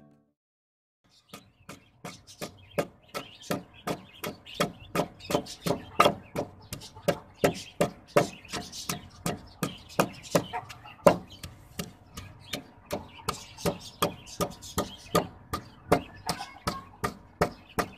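Wooden pestle pounding soaked almonds, fennel seeds, cumin and black peppercorns in a large mortar, grinding them for sardai. The strokes are regular, about three a second, and start about a second in.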